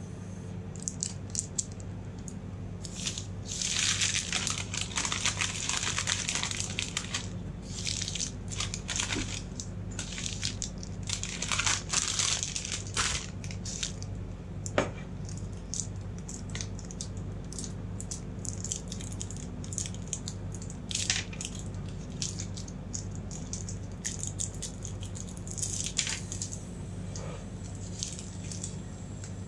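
Crinkling of plastic candy wrappers being unwrapped by gloved hands, in several bursts, with a single sharp click about halfway through, over a steady low hum.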